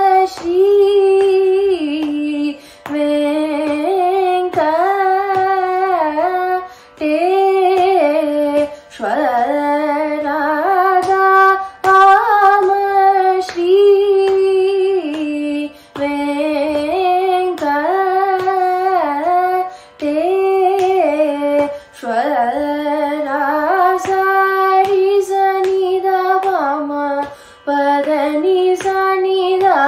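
A young woman's solo Carnatic vocal singing a varnam in Panthuvarali raga, set to Adi tala. Her phrases last a few seconds, ornamented with quick pitch oscillations (gamakas), with short breaks for breath between them.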